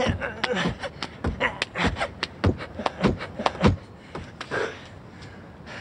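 Men laughing hard in quick breathy bursts, the laughter dying down near the end.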